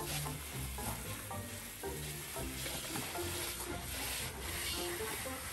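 Garden hose spray nozzle hissing steadily as the water jet plays over a dog, with background music underneath.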